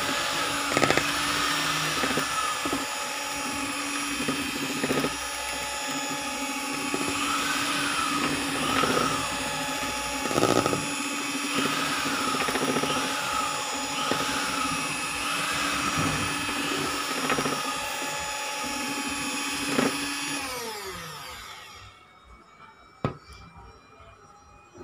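Electric hand mixer running steadily, its beaters whipping cream and condensed milk in a stainless steel bowl, with a few sharp knocks along the way. About 21 seconds in it is switched off and winds down with a falling whine, followed by a single click.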